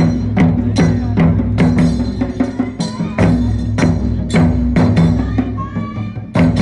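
Japanese taiko drum ensemble playing a driving rhythm, a large drum and a barrel drum struck about two to three times a second, over a steady low drone.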